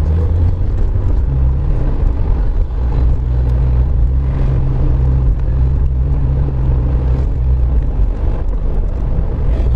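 Steady drone of a car driving on wet road, heard from inside the cabin: a low engine hum under an even hiss of tyres on the wet pavement.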